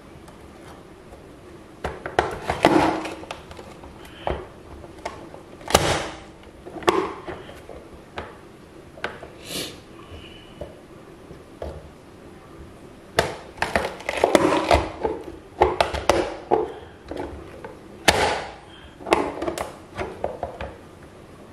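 Manual push-down vegetable dicer being pressed shut again and again, its plastic lid clacking and the grid blade crunching through vegetable pieces in irregular bursts, densest about two thirds of the way through.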